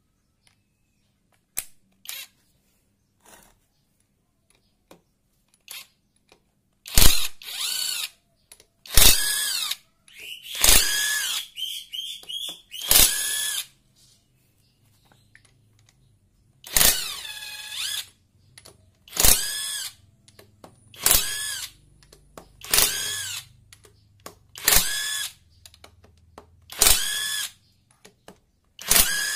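Handheld electric drill-driver spinning out the bolts of a Yamaha Vega ZR engine's side cover, in about a dozen short whirring bursts. Each burst starts sharply and lasts under a second. In the second half they come evenly, about every two seconds.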